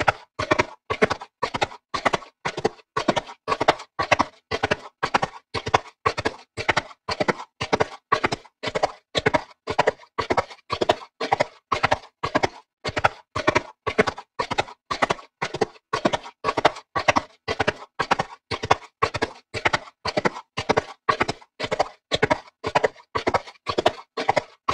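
A horse's hooves pounding in a steady running rhythm, each stride a quick cluster of hoofbeats, about two strides a second.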